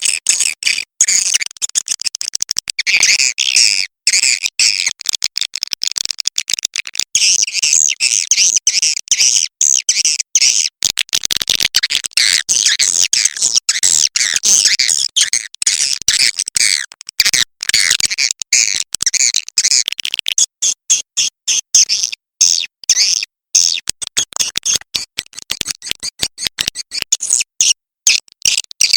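Swiftlet lure call recording: dense, high-pitched twittering and chirping of edible-nest swiftlets, chopped by many short gaps. The chirps thin out a little after about twenty seconds.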